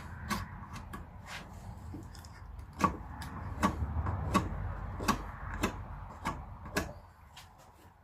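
Small pocket knife cutting and peeling bark off a beech branch: a series of sharp clicks and snicks, roughly one a second, as little pieces of bark are worked off, over a low rumble that fades near the end.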